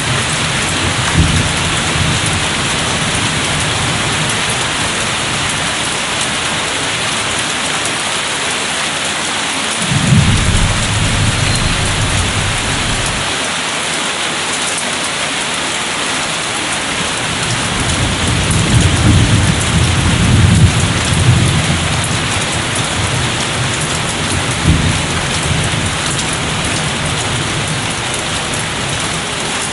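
Steady rain falling on hard surfaces with distant thunder rumbling: a low rumble about ten seconds in lasting a few seconds, and a longer rolling rumble around two-thirds of the way through.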